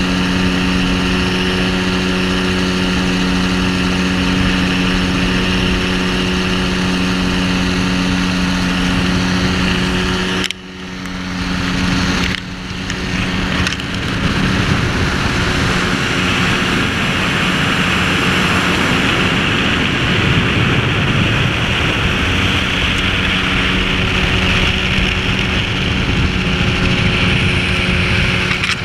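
Microlight trike's engine and pusher propeller droning steadily in flight, with wind rushing over the microphone. The sound drops out briefly twice, about ten to twelve seconds in. After that the wind rush is stronger and the engine drone weaker.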